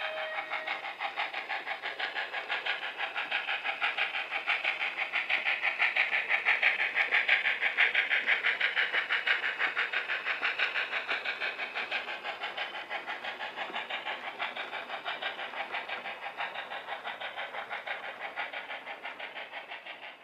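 Model steam tank engine hauling coaches past on the track. A steady rhythmic clatter of about four beats a second grows louder to a peak around seven to eight seconds in, then fades as the train moves away.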